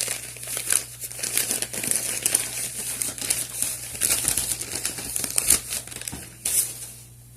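Packing material crinkling and rustling as a padlock is unwrapped from its package, with many quick irregular crackles that die away near the end.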